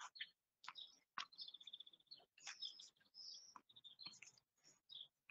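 Faint songbird chirping: short high calls and, about a second and a half in, a rapid trill of repeated notes. Two light clicks come within the first second and a half.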